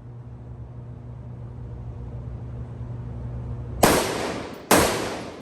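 Two rifle shots from a Springfield Armory Saint Victor AR-15, fired about a second apart near the end, each ringing out with a long echoing tail. A steady low hum sits underneath before them.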